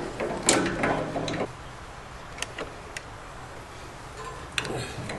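A few scattered, light metallic clicks and taps of a wrench on the pilot tubing's compression nut at a gas water heater's control valve.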